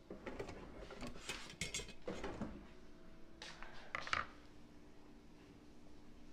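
Dishes and utensils being handled on a kitchen counter: several short clusters of clinks and rustles over the first four seconds, then only a faint steady hum.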